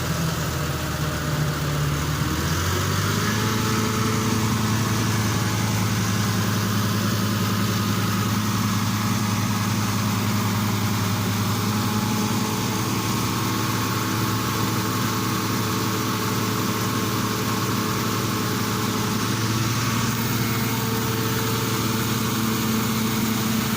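Heavy diesel engine running; it speeds up about two to three seconds in and then runs steadily at the higher speed.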